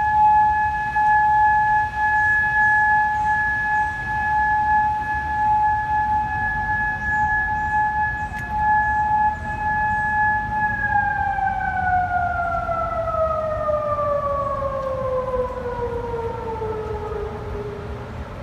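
Federal Signal Modulator 2008 outdoor warning siren heard at a distance, holding a steady tone during its monthly test. About ten seconds in, the tone winds down and falls slowly in pitch as the siren ends its steady-tone signal.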